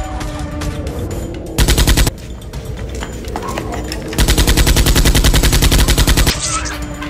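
Two bursts of rapid automatic gunfire sound effects, a short one of about half a second and then a longer one of about two seconds, over background music.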